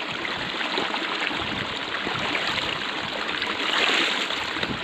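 Steady outdoor hiss of wind and light rain, swelling briefly about four seconds in.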